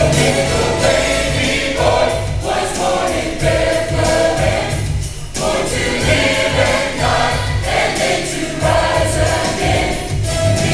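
Church choir singing a Christmas cantata in sustained phrases, with a brief break between phrases about five seconds in.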